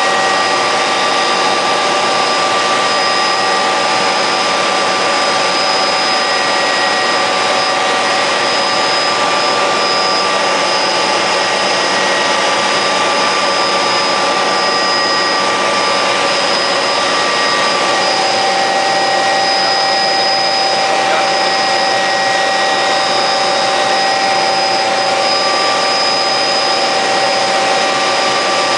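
MD 500 helicopter in cruise flight heard from inside the cabin: its Allison 250 turboshaft and rotor drive give a steady, loud whine of several high tones over a dense rushing noise.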